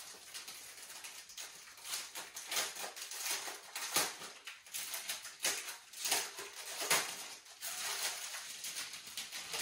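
Plastic bag rustling and crinkling in irregular bursts as it is handled and opened, with the packets of diamond painting beads inside.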